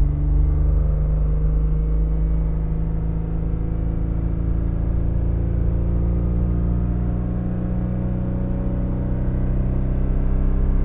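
Opel Omega B's 2.5-litre V6 engine pulling steadily while driving, heard inside the cabin, a low rumbling note whose pitch creeps slowly upward as the revs gently rise.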